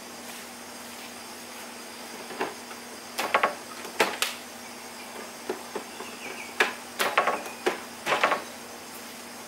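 Hard plastic clicks and knocks of DeWalt FlexVolt battery packs being slid and latched into a cordless miter saw, in two clusters about three seconds apart, over a steady faint hum.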